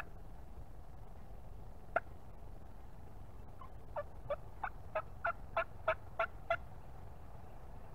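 Wild turkey calls: two sharp clucks about two seconds apart, then a run of about nine yelps, roughly three a second, getting louder toward the end.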